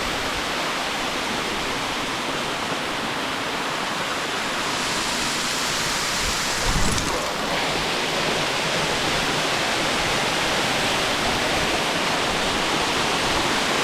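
Steady rushing of water from a waterfall or stream in a rocky canyon. The rush grows a little brighter about five seconds in, and there is a brief low thump about seven seconds in.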